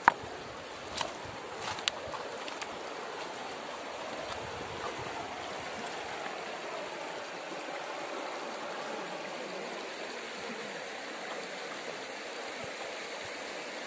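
Mountain river water rushing steadily over shallow stony rapids. A few sharp clicks sound in the first two seconds, the first the loudest.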